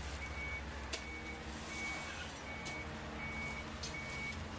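A vehicle's reversing alarm beeping, one high tone repeating about once every three-quarters of a second, over a steady low rumble, with a couple of sharp clicks.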